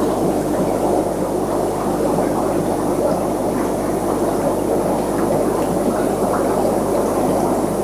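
Steady bubbling, churning water noise from a working aquarium: its water circulation and aeration running continuously without a break.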